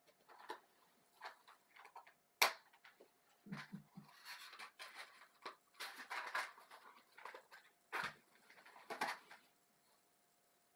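Quiet handling sounds as a candle is lit by hand: small clicks, a sharp click about two and a half seconds in, three soft low knocks, then a run of scratchy scraping rustles, the last just before nine seconds.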